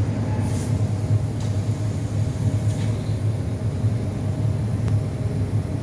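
Bystronic Bysprint laser cutter, retrofitted with a 6 kW fiber laser source, running with a steady low drone as it cuts 15 mm mild steel plate, with a few faint ticks.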